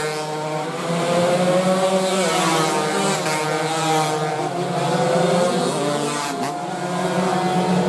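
Several two-stroke 116 cc underbone racing motorcycles at full throttle, their engine notes overlapping as they race past, each rising in pitch and dropping with gear changes.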